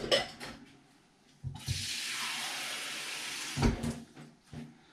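Kitchen tap running for about two seconds, filling a bowl with water, then shut off sharply. A few low knocks from the bowl being handled come just before and after.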